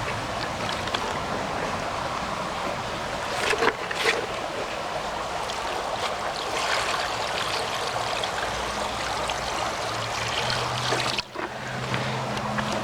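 Steady rushing of a small mountain creek flowing over rocks and a dam of stacked stones, with two short sharp sounds about four seconds in.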